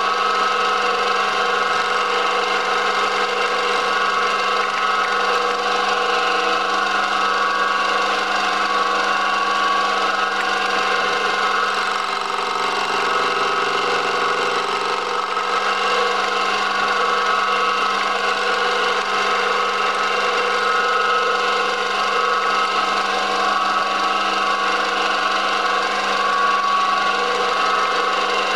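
Small milling machine running steadily with a many-toned whine, its end mill cutting waves into the rim of a perspex (acrylic) rosette held on a rotary table.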